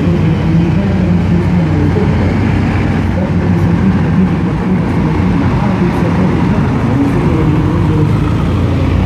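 Column of heavy eight-wheeled military multiple-rocket-launcher trucks driving past, their engines making a loud, steady low drone.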